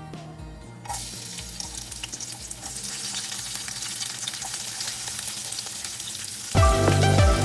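Food hitting hot oil in a pan and sizzling, starting suddenly about a second in, a steady hiss scattered with small crackling pops. Background music runs softly underneath and comes in loudly near the end.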